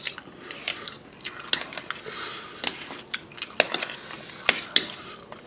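Eating at a table: utensils clicking sharply against plates and bowls, a dozen or so scattered clicks, with chewing between them.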